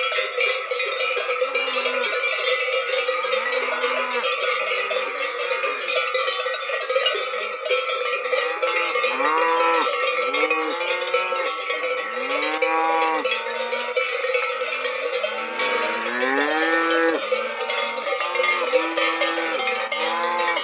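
Many cow bells on a moving herd of cattle clanking and ringing without a break, with cattle lowing again and again over the bells, the calls coming thicker from about eight seconds in.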